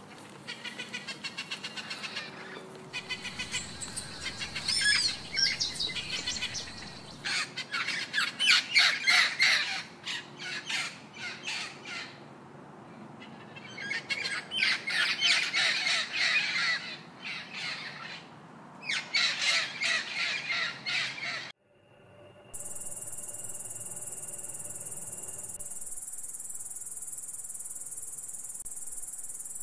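Parrots calling: bursts of rapid, harsh, chattering squawks with short pauses between them. About three quarters of the way through they stop, and a steady, high-pitched insect trill takes over.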